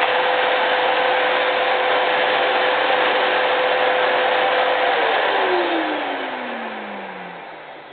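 Numatic James JVH180 vacuum cleaner running steadily, a whine over rushing air. About five seconds in, the whine falls steadily in pitch and the sound fades as the motor winds down.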